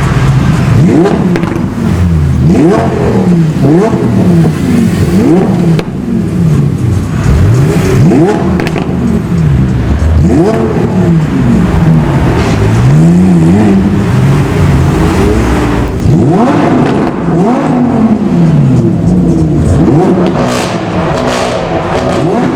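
Modified cars accelerating hard and revving, the engine pitch climbing and dropping again and again as they change gear and pass, at times more than one engine at once. Near the end come a few sharp pops, typical of exhaust crackles on tuned cars.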